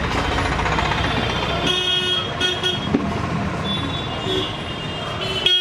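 Vehicle horns tooting several times over a steady engine and traffic rumble, the first toots about two seconds in and another just before the end.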